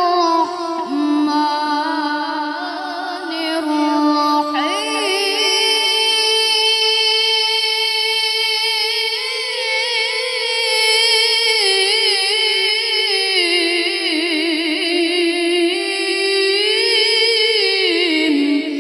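A boy's voice reciting the Qur'an in the melodic tilawah style, amplified through a microphone: long held notes with a wavering, ornamented pitch, stepping up to a higher phrase about four seconds in.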